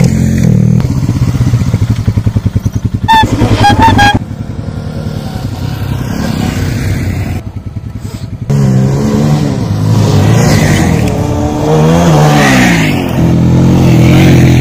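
Motorcycle engine revving on loose dirt, its pitch climbing and falling again and again as the bike is spun and slid, with a brief drop and break partway through.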